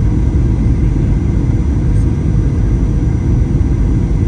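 Steady cabin rumble of a Boeing 737-800 in flight: the engines and the airflow over the fuselage make a loud, even low roar, with a few faint steady whines above it.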